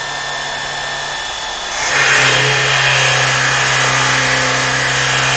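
Cordless battery pressure washer running: a steady motor and pump hum with a spray hiss over it. About two seconds in it grows louder and drops slightly in pitch as it comes under load, and runs on steadily.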